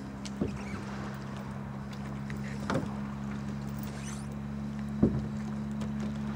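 Tiller-steered outboard motor running steadily under way, a small open boat passing close by. Three sharp knocks stand out over the engine hum, the loudest near the end.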